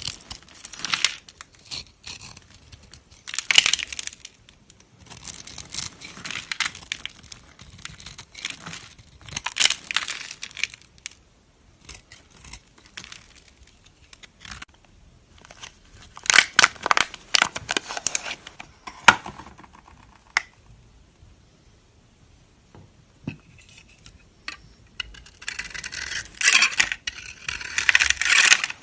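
Knife cutting through dry soap: crisp crunching and crackling in repeated strokes with fine clicks, a quieter lull about three quarters of the way through, then denser crackling near the end.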